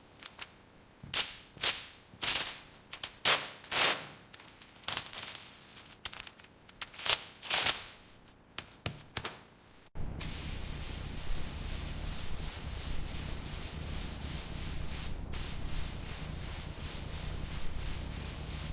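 A run of short spraying hisses, about ten in the first half, then from about ten seconds in a continuous, louder spray hiss with a low hum underneath.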